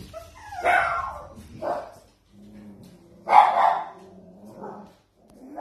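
Puppies yapping: four short, high barks, the loudest a little past three seconds in.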